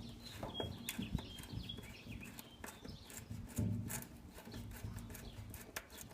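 Hand Phillips screwdriver backing screws out of a window air conditioner's sheet-metal mounting frame: scattered light clicks and knocks, over a low steady hum.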